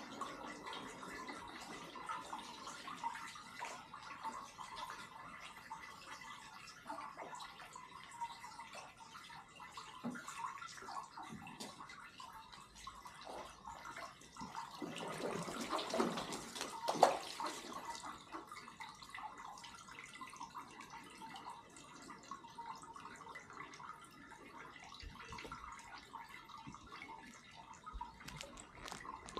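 Water splashing and dripping in small irregular ticks, with a louder stretch of splashing about halfway through that ends in one sharp sound.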